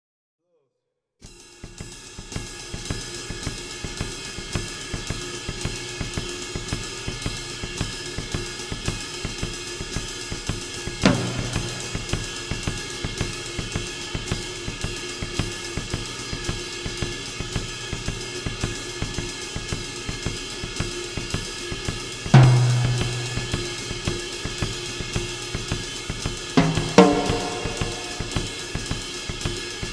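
Drum kit playing a steady, even pattern of hi-hat and cymbal strokes over a held tone, starting about a second in. Three heavy low drum hits ring out: one about a third of the way in, one about two-thirds in, and one near the end.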